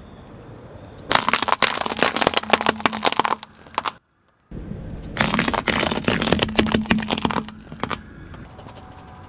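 Walnuts in their shells cracking and crunching under a rolling car tire: a dense run of sharp cracks lasting about two seconds, then, after a short gap, a second run that fades out.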